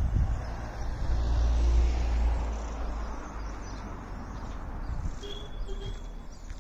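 Road ambience with a vehicle going by: a low rumble that swells over the first couple of seconds and fades by the middle, with a thin high tone near the end.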